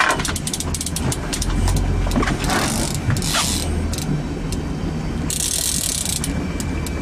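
Fishing reel ratchet clicking, in rapid runs that thin out after the first second or so, as a hooked king salmon is played on the rod, over the steady low drone of the boat's motor. About five seconds in comes a hiss lasting about a second.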